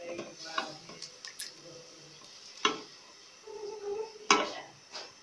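Silicone spatula stirring and scraping masala being fried in oil in a metal pot, with small scrapes and clicks and two sharp knocks of the spatula against the pot, the louder one about four seconds in.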